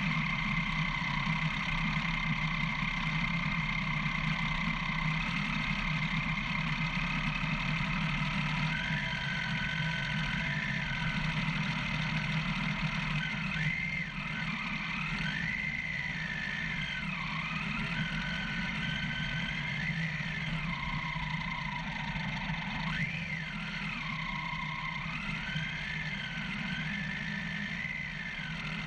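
Motorcycle engine running on a rough dirt track, its pitch rising and falling again and again as the throttle is opened and closed, over a steady low drone.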